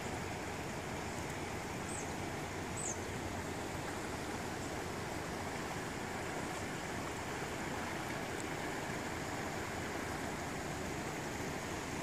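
Steady rush of the river Ognon in flood, fast brown floodwater running over the banks. Two short, high, falling chirps about two and three seconds in.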